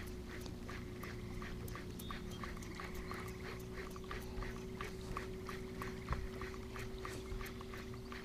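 Baitcasting reels being cranked on a lure retrieve: a quick, regular clicking, about four a second, over a steady low hum.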